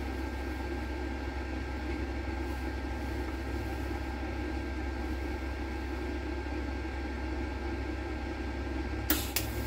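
Steady hum of the TIG welding set running, with two sharp cracks close together near the end as the torch arc is struck to tack the piece on.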